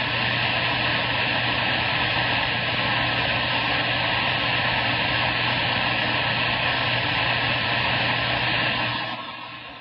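CB radio receiver static: loud steady hiss from the rig's speaker with a low hum under it, the open channel with no readable voice on it. About nine seconds in it drops to a quieter hiss.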